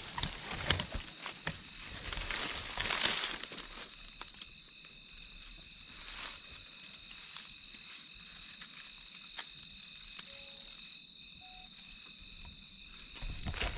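Rustling and crinkling, loudest about two to three seconds in, with scattered light clicks, over a steady high-pitched two-tone drone.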